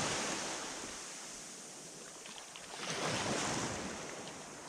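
Small waves breaking and washing up a pebble beach around a wader's legs in the shallows: a surge at the start that fades, then another wave washing in about three seconds in.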